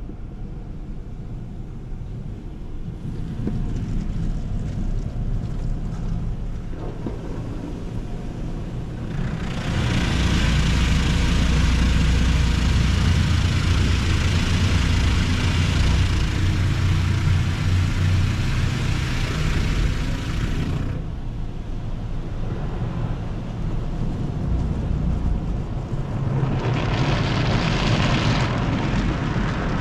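Automatic tunnel car wash heard from inside the car: a steady low rumble of the wash machinery, with water spraying over the windshield and body loud from about ten seconds in, easing off about ten seconds later, and starting up again near the end.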